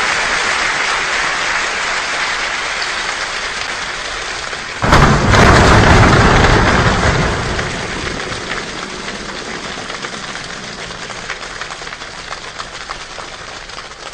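Steady rain, with a sudden loud crack of thunder about five seconds in that rumbles and fades over the next few seconds. The rain grows gradually quieter afterwards, with separate drips standing out near the end.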